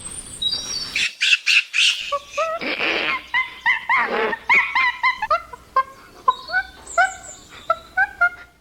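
Chimpanzee calling: about a second of harsh, noisy screams, then a long run of short, pitched hoot-like calls, each rising at its start, about two or three a second.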